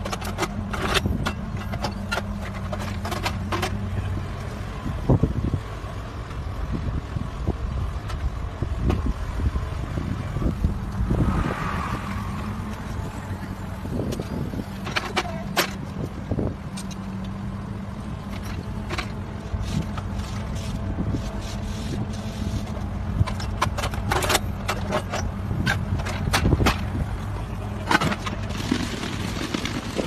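Volvo road-rail excavator's diesel engine running steadily, with repeated sharp metallic clanks and knocks from its sleeper-laying attachment working on the track, and a brief higher squeal about a third of the way in.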